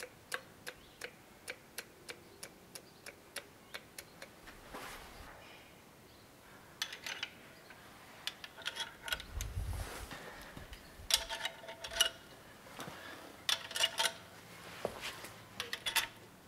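Thumb-pump oil can clicking about three times a second as it squirts oil onto a camshaft, stopping after about four seconds. Then irregular metal clinks with brief ringing as the camshaft bearing caps and parts are handled and set on the cylinder head.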